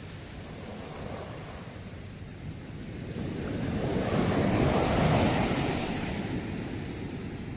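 Ocean waves breaking on the shore: a low wash of surf that swells to one louder wave about five seconds in and then ebbs away.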